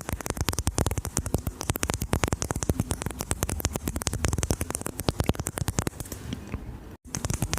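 ASMR mouth sounds close to the microphone: rapid, continuous wet clicks and smacks of lips and tongue, with a low rumble under them. They cut out for an instant about seven seconds in, then resume.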